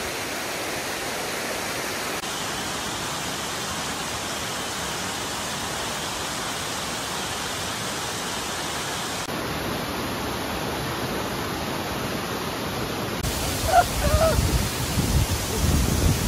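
Steady rushing of a large waterfall cascade, with a low, gusty rumbling in the last few seconds.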